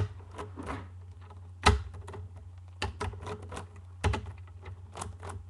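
Plastic layers of a LanLan 4x4 puzzle cube being turned by hand: an irregular run of sharp clicks and clacks, several a second, the loudest about a second and a half in. A steady low hum runs underneath.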